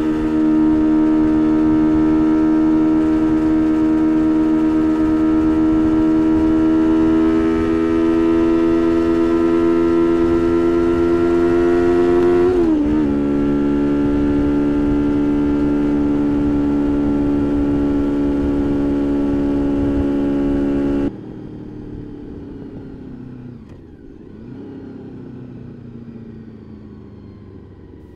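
Straight-piped 1999 Honda VFR800 V4 engine running hard at high revs under way, its note climbing slowly, then wobbling briefly about halfway through and settling a little lower, with road and wind rush underneath. About three-quarters of the way through the sound turns abruptly much quieter and muffled, and the engine note falls away slowly; this is where the recorder vibrates loose from its mount on the battery cover.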